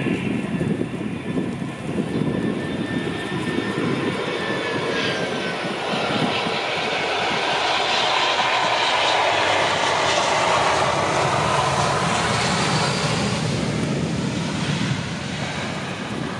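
Airbus A320 jet airliner landing and passing close by: the whine of its engines falls in pitch as it goes past, and a rush of jet engine noise swells and holds for several seconds before easing near the end.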